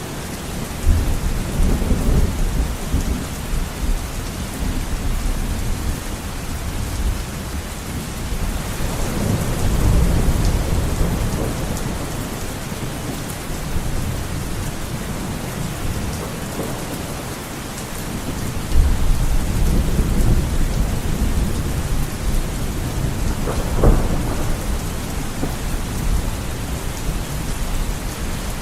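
Heavy rain beating on a window pane in a steady hiss, with deep rolling rumbles of thunder swelling several times and one sharper crack near the end.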